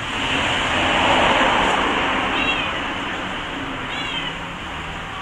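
A small pet animal gives two short, high-pitched cries about a second and a half apart, over steady background noise.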